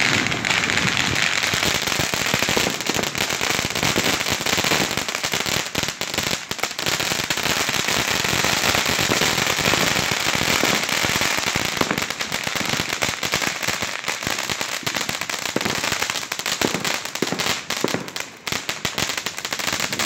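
Several ground fountain fireworks spraying sparks: a steady hiss thick with fast crackling, dipping briefly twice.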